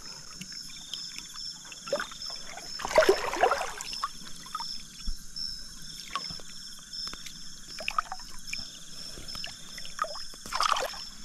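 Water splashing and trickling in shallow river water, with a louder splash about three seconds in and another near the end. Insects chirp steadily behind it.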